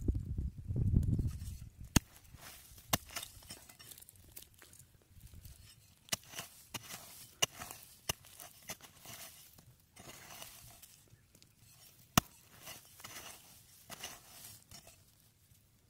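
Scattered light scuffs and rustles of potatoes being picked out of dry, crumbly soil by hand, with a few sharp clicks standing out. A low rumble in the first couple of seconds.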